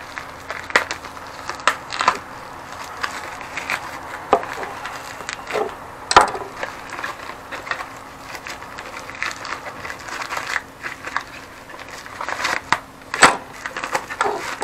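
Plastic mailing packet crinkling and rustling as a small parcel is handled and opened by hand, with irregular sharp clicks and crackles throughout.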